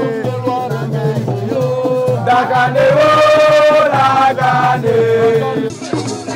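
Chanted singing: a voice holding long, sustained notes over music with a low repeating beat.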